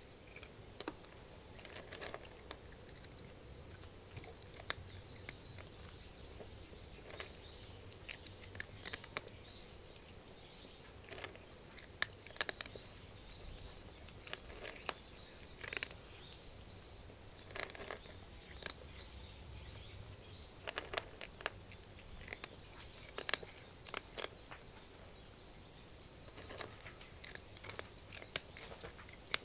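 Cat crunching dry dog-food kibble, with a run of irregular sharp crunches and clicks as it chews.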